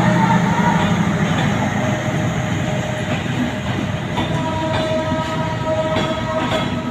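Train pulling out of a station: a steady loud rumble of the passing carriages, with a held tone joining in about four seconds in.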